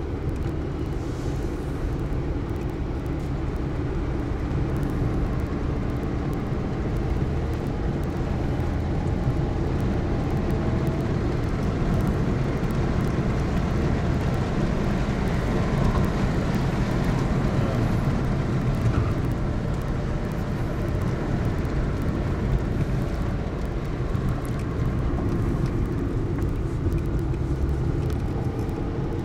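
Car engine and tyre noise heard from inside the cabin while driving, a steady low hum that grows a little louder around the middle.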